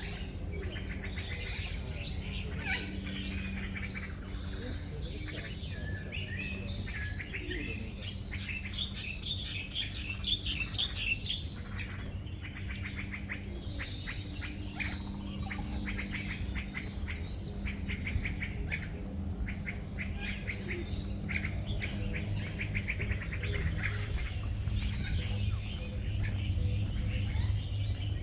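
Many songbirds chirping and trilling at once, with quick rattling runs of notes, over a steady low hum.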